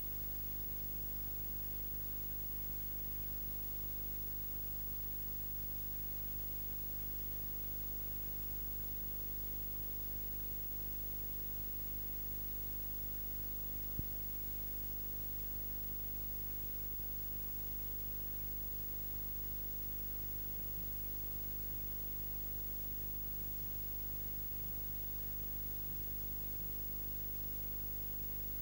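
Steady electrical hum and hiss from a camcorder's audio track recorded with the microphone unplugged, so no room sound is picked up. A single click about halfway through.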